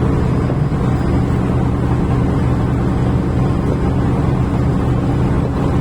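Fishing boat engine running steadily at constant speed, an even low drone.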